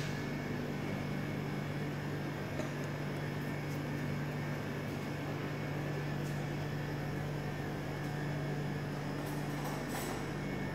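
Steady machinery hum: one low, unwavering droning tone over an even hiss, with no change in level.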